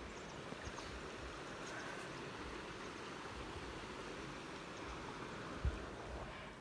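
Steady rushing of a creek running high after flooding, with one brief low thump near the end.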